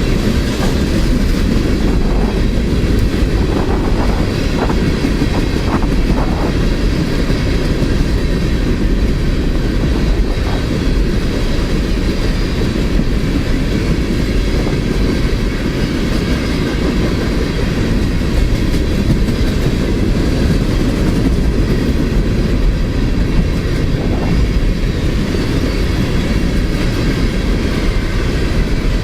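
Freight cars of a long train rolling past at about 33 mph: a steady, loud rumble of steel wheels on rail, with the clickety-clack of wheels over rail joints and a few sharp clicks in the first several seconds.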